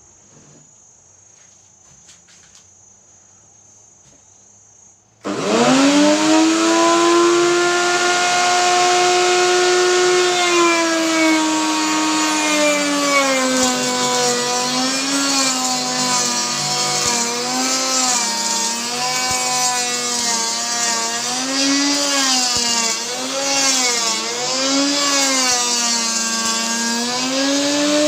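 Wood router switched on about five seconds in, its motor spinning up fast to a high steady whine. After a few seconds its pitch dips and recovers again and again as the bit loads up cutting a groove in the wood.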